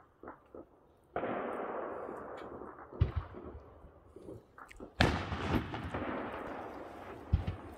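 Fireworks going off. A few small pops, then a sudden hiss about a second in that fades over a couple of seconds, a sharp bang about three seconds in, and a louder bang about five seconds in, followed by crackling that slowly dies away.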